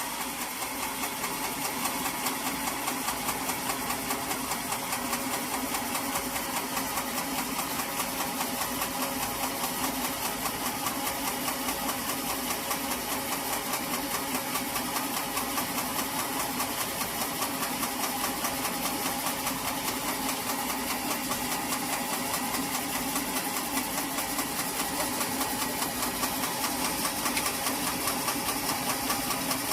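Sawmill machinery running steadily: an engine-driven saw with a fast, even chugging pulse and a high hiss over it, without change.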